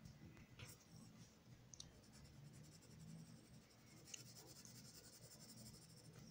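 Faint scratching of a coloured pencil shading on paper, with a few light clicks.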